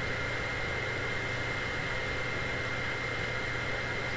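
Vacuum cleaner motor running steadily, a constant drone with a high whine.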